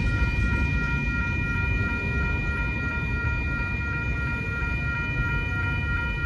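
Railroad crossing warning bell ringing steadily over the low rumble of freight cars rolling by on the mainline.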